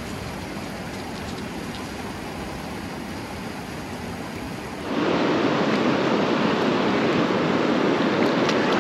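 Steady rush of flowing stream water, growing louder just before five seconds in.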